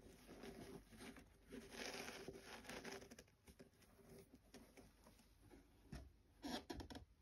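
Faint rustling of cotton-gloved hands handling a leather Air Jordan 1 High sneaker and its laces, a little louder about two seconds in. A few soft taps near the end as the pair is set down on the table.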